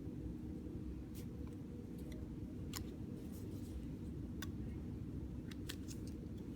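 Light, sharp clicks and taps, about ten of them at irregular times, as AA batteries are handled and fitted into the plastic battery compartment of a smart radiator thermostat, over a steady low hum.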